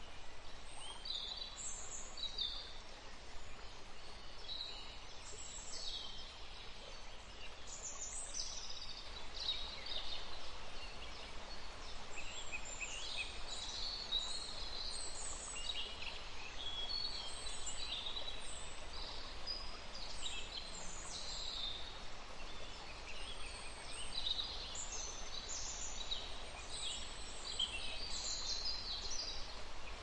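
Many small birds chirping and whistling in short high calls, getting busier after the first several seconds, over a steady outdoor background hiss.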